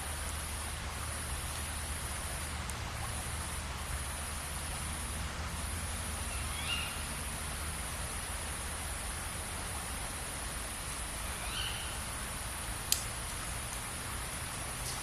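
Mountain valley ambience: a steady rushing hiss under a continuous high-pitched trill that breaks off several times in the first five seconds. Two short bird calls come about seven and twelve seconds in, and a single sharp click about thirteen seconds in.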